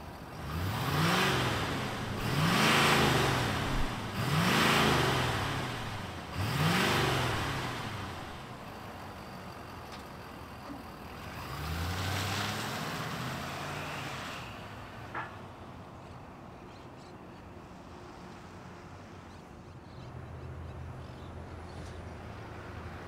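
2023 Ford F-250 Super Duty's 6.7-litre Power Stroke turbo-diesel V8 being revved in four quick blips, each rising and falling in pitch, then once more about twelve seconds in. After that it drops back to a low, steady sound.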